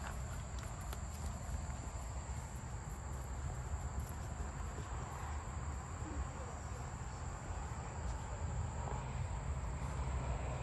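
Steady high-pitched chirring of insects, with a low rumble underneath.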